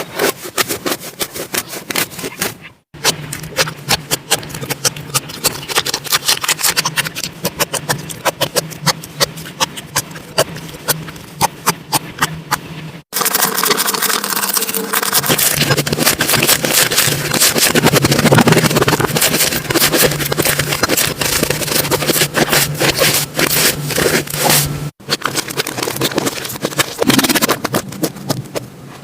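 Slime being squeezed and worked by hand, giving a dense run of small wet clicks and crackling pops, with sudden cuts between clips three times.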